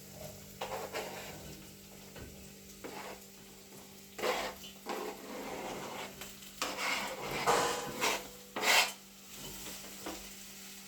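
A spoon scraping and stirring in a cooking pot as chopped vegetables are added to a stew. Short loud scrapes come about four seconds in, around seven to eight seconds, and near nine seconds.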